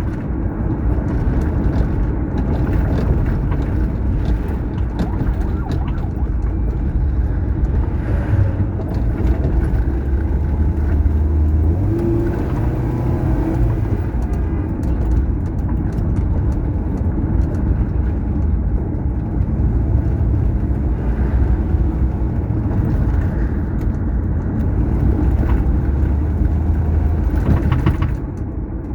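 Road noise from a vehicle driving along a highway: a steady low rumble of tyres, engine and wind.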